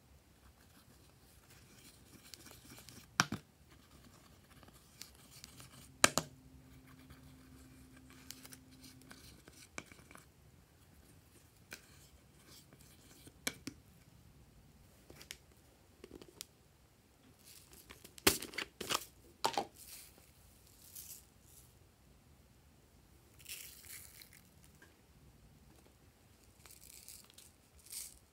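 Quiet handling sounds: a makeup brush scraping powder eyeshadow in a plastic palette, and plastic containers being handled, with a scattering of sharp clicks and taps, several bunched together past the middle.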